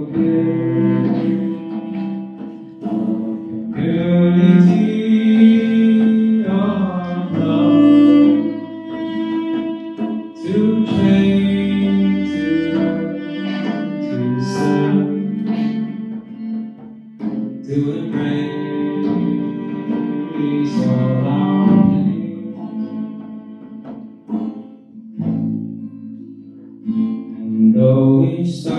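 Slow song music with guitar and a bowed string instrument playing long held notes, with some singing.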